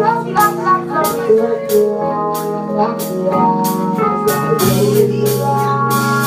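Live band playing an R&B song: held keyboard chords and sustained bass notes over a steady beat of cymbal ticks.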